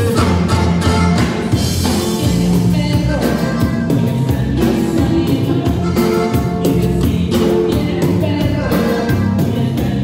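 A cumbia band playing live through the PA during a sound check: electric bass and drum kit keeping a steady beat, with other instruments and singing over it.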